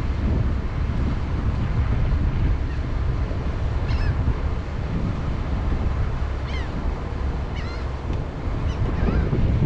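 Wind buffeting the microphone in a steady low rumble, with a few short, faint bird calls in the background.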